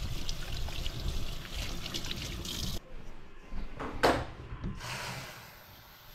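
Kitchen faucet running into a stainless-steel sink, first over washing hands, then into a bowl of small potatoes being rinsed. About four seconds in there is one sharp knock.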